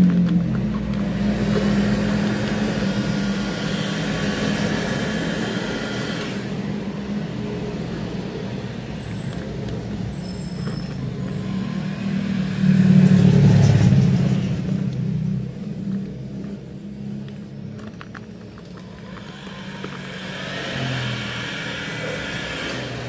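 Motor vehicle engines passing by, a steady low hum that swells and fades, loudest about halfway through.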